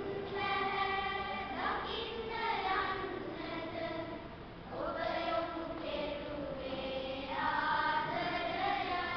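Children's choir singing, holding long notes.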